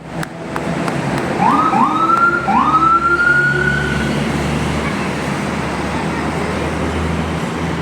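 Vehicle siren on a bus giving three rising whoops, the last one held and slowly climbing, over the steady low hum of the running engine. The siren then stops and only the engine and road noise remain.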